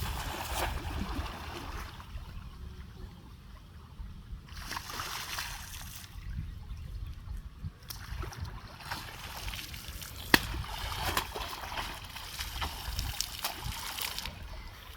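Water splashing and sloshing in irregular spells, with one sharp knock about ten seconds in.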